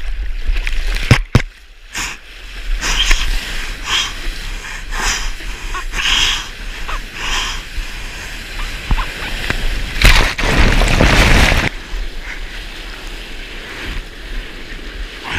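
Sea water splashing and sloshing around a surfboard and its mounted action camera as a surfer paddles through broken waves: short splashes about once a second from hand strokes, then a loud rush of whitewater about ten seconds in.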